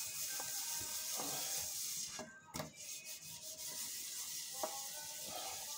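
Stainless steel plate being scrubbed by hand while dishwashing: a steady rasping scrub that breaks off briefly about two seconds in, with a couple of light metallic clinks.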